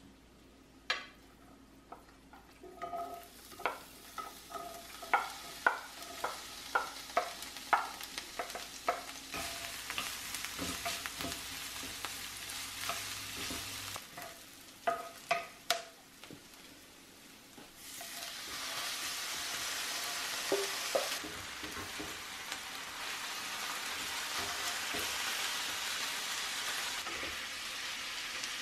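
A wooden spatula stirs and knocks against an enameled cast-iron skillet, each knock ringing briefly, over garlic and onion sizzling in oil. From about 18 s in, ground beef frying sizzles louder and steadier.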